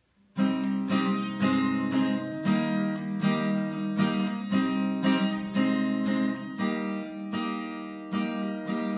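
Acoustic guitar strummed in a steady rhythm, about two strums a second, playing a song's instrumental introduction; it begins about half a second in.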